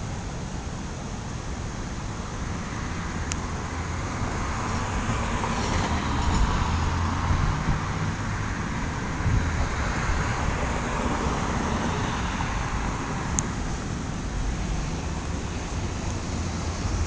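Steady road traffic noise, swelling as a vehicle passes about halfway through.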